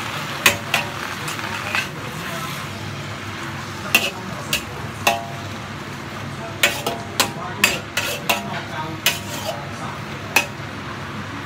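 Water spinach stir-frying in a wok: a steady sizzle under sharp clinks and scrapes of a metal spatula and spoon against the wok, some ringing briefly, coming thicker from about four seconds in.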